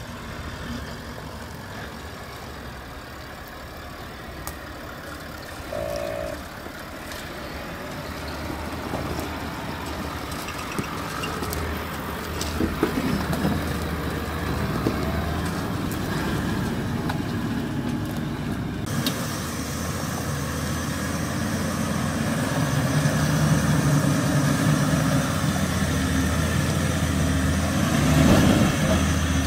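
Toyota LandCruiser VDJ76's 4.5-litre turbo-diesel V8 running at low revs as the truck crawls over rough off-road ground, with a few short knocks. It gets louder in the last third.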